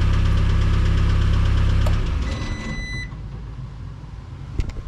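Case 410 skid loader engine running steadily, then shut off about two seconds in, the rumble dying away. A brief high electronic beep follows, and a single sharp knock comes near the end.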